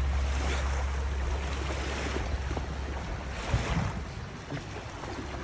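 Small waves lapping and washing onto a sandy shore, with wind buffeting the microphone in a low rumble that eases about halfway through.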